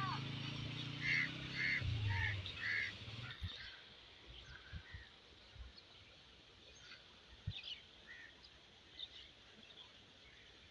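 A small motorcycle engine running as the bike passes, with four short honks over it in quick succession. After a cut, only faint scattered bird chirps remain.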